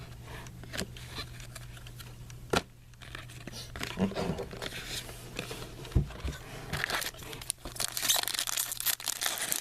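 Trading card pack wrappers tearing and crinkling as packs are opened, with light taps and handling of cards. The crinkling gets busier over the last few seconds.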